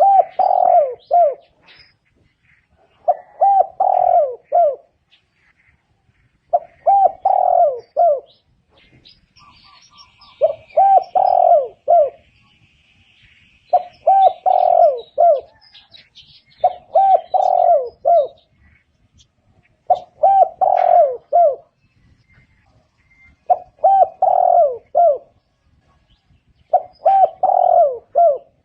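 Spotted dove calling: a phrase of three or four coos, repeated about every three seconds, nine times over.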